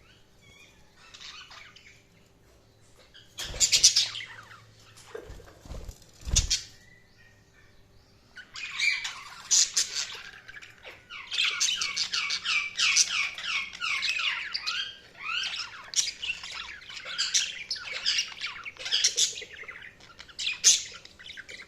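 Budgerigars chirping and chattering in a fast run of short squawks and warbles, sparse at first and then nearly continuous from about a third of the way in. Two loud sudden sounds stand out early, one about four seconds in and another a couple of seconds later, and a faint steady hum runs underneath.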